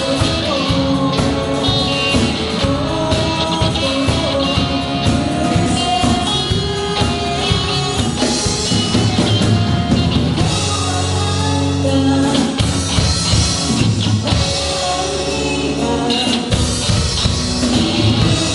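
Rock band playing a cover song, with a singing voice over guitar and drums.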